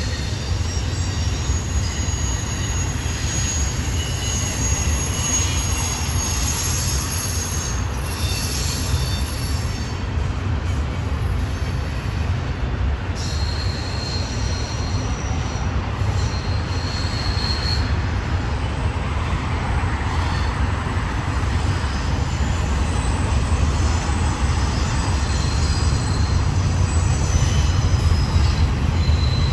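Double-stack intermodal well cars of a freight train rolling past with a steady low rumble, and intermittent thin, high-pitched wheel squeal coming and going over it. It grows a little louder near the end.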